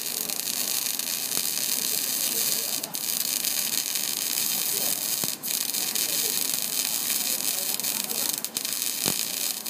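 Electric arc welding on steel plate: a steady, dense crackling hiss from the arc, with short breaks about three times.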